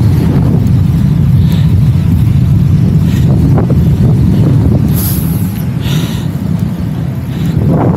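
Wind buffeting the microphone of a moving bicycle at speed: a loud, steady low rumble, with a brief higher hiss about five seconds in.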